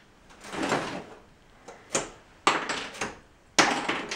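Plastic clatter of Lego bricks being pulled apart by hand and dropped onto piles of loose bricks: several sharp rattling clatters in a row, the loudest near the end.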